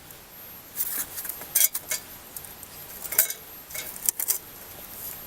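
Metal hand tools clinking and rattling in a handful of short, sharp bursts, at work on a snowblower before its carburetor comes off.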